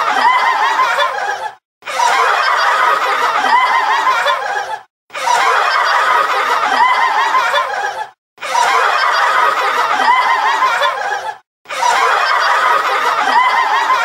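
Laughter sound effect: a laugh clip about three seconds long repeating over and over, each repeat separated by a short silent gap.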